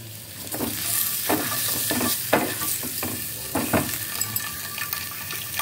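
Boiled eggs frying in oil and spice masala in a frying pan, a steady sizzle, while a wooden spatula stirs and turns them, scraping and knocking against the pan several times.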